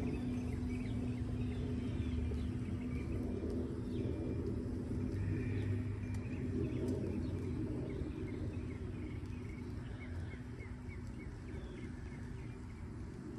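A singing bowl's ring slowly fading, under outdoor background of a low rumble and birds chirping.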